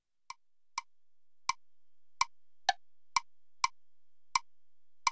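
Venabili Metronome phone app clicking: nine short, sharp metronome clicks about half a second to three-quarters of a second apart, unevenly spaced, with one click pitched lower than the others a little before the middle.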